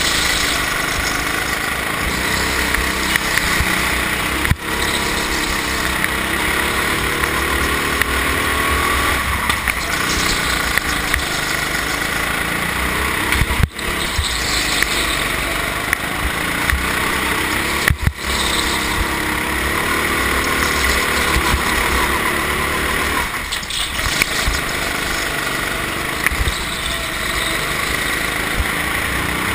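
Go-kart engine running under load, heard from a camera mounted on the kart, its pitch rising and falling as the driver accelerates out of corners and eases off into them. The sound cuts out for an instant a few times.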